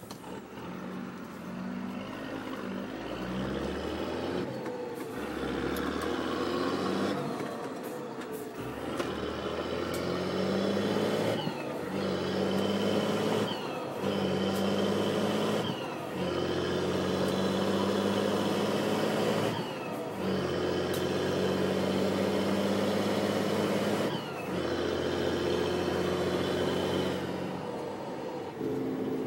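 MAN 18.232 diesel truck accelerating up through the gears, its turbocharger whistling high above the engine note. At each of the repeated gear changes the sound dips and the whistle slides down, then builds again.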